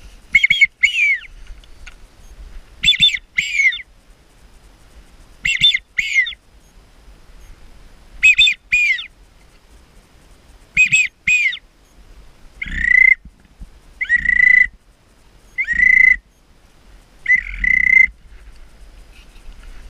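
A duck whistle call blown in a steady rhythm: pairs of high, falling whistled notes about every two and a half seconds, then, from a little past halfway, single longer and flatter notes about every second and a half, to draw in approaching ducks.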